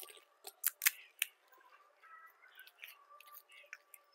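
Crisp pani puri (golgappa) shells cracking and crunching as they are broken open and chewed: a few sharp crackles in the first second or so, then softer crackling and chewing.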